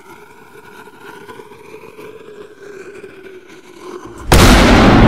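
A faint steady drone with a few held tones rising slightly in pitch, then about four seconds in a sudden, very loud boom that keeps rumbling.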